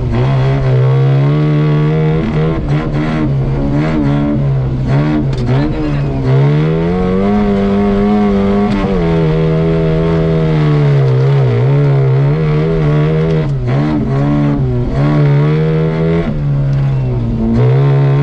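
Off-road competition vehicle's engine working hard, heard from inside the cab; its pitch climbs about six seconds in, holds high for a couple of seconds, then drops back and stays steady. Scattered knocks and rattles run through it.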